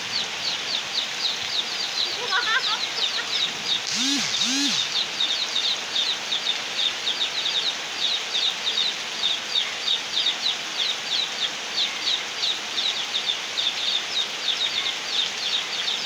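Heavy rain pouring down steadily, with a bird's high peeping calls repeating several times a second over it. About four seconds in, a brief low two-part call cuts through.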